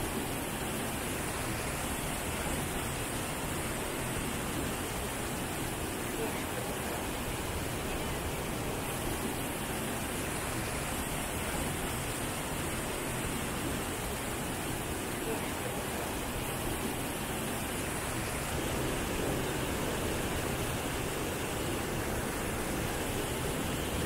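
The Rhine Falls heard up close: a steady, unbroken rush of whitewater crashing over rocks.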